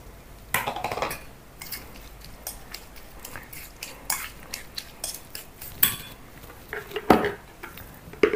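Metal spoon scraping and clinking against a stainless steel bowl as crumbled tofu and chopped celery leaves are stirred together into a filling, with a few louder knocks of the spoon on the bowl.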